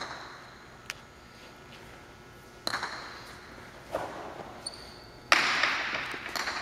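Jai alai pelota striking the fronton walls and floor in a rally: a series of sharp cracks a second or so apart, each ringing on in the large hall, the loudest about five seconds in.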